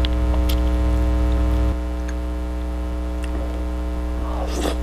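Steady electrical mains hum, the loudest sound, which drops in level a little under two seconds in. Over it are a few faint clicks and smacks of someone eating with their hands, and a short rustly mouth sound near the end.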